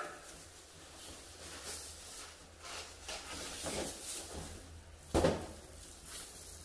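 Plastic wrapping around a flat-screen TV rustling and the cardboard carton scraping as the set is pulled out of its box, with one loud thump about five seconds in.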